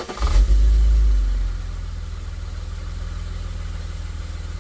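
BMW E46 inline-six petrol engine catching on the starter and flaring up in revs, then settling after about a second and a half into a steady idle. This is its first start on fresh oil after an oil and filter change.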